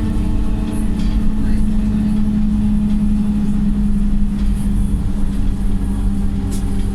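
Wright StreetLite single-deck bus's four-cylinder Cummins diesel engine pulling hard on the move, giving a steady drone.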